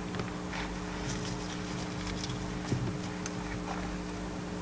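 A steady low hum with a few faint scattered clicks and rustles.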